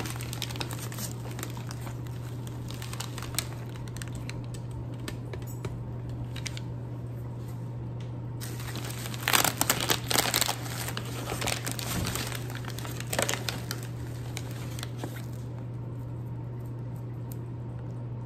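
Packaging crinkling and rustling as a boxed potted plant is unwrapped, with a louder burst of crinkling about halfway through. A steady low hum runs underneath.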